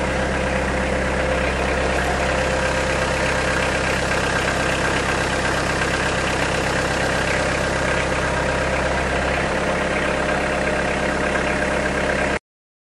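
An engine idling steadily, cutting off abruptly near the end.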